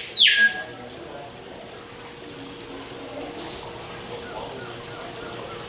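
Birds calling in an aviary: a loud whistled call that ends about half a second in, then scattered faint, short, high chirps, over a background murmur of distant voices.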